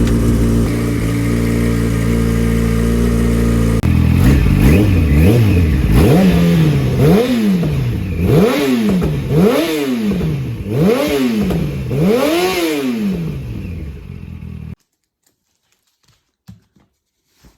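2007 Yamaha FZ1's inline-four engine idling steadily, then revved about six times in a row, each rev rising and falling smoothly. The sound cuts off suddenly near the end, leaving only a few faint clicks.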